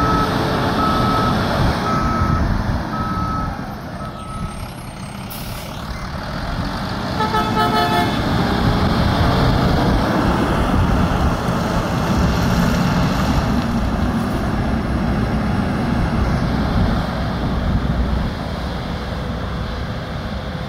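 Mack LEU garbage truck's reverse alarm beeping steadily for the first four seconds or so, then stopping. A short horn toot sounds about seven seconds in, and the truck's diesel engine then runs louder as it pulls away.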